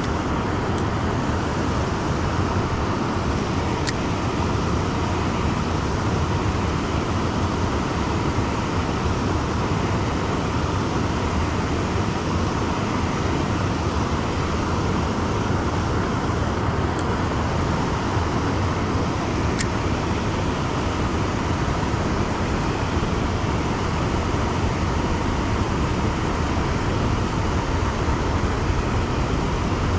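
Steady rushing of a river flowing over a low weir and through rocky white water, with two faint ticks.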